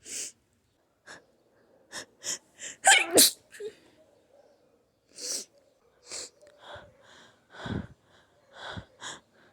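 A person sneezing again and again in a sneezing fit: a string of more than a dozen short bursts, the loudest a close pair about three seconds in.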